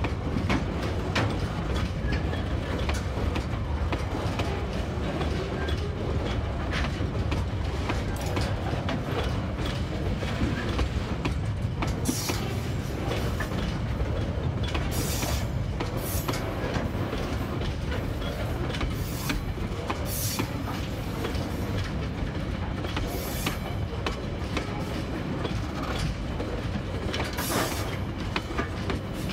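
Container flat wagons of a freight train rolling slowly past, a steady low rumble with wheels clicking over rail joints. From about twelve seconds in, several short high-pitched scrapes from the wheels.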